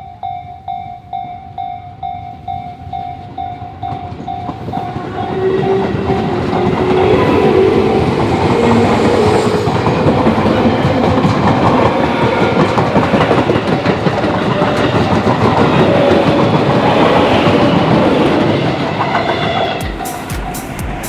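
Japanese level-crossing electronic warning bell (ecoK type) ringing a fast, repeating tone. About four seconds in, an electric train passes over the crossing, loud with wheel noise and rail clatter for around fifteen seconds. The train fades near the end while the bell keeps ringing.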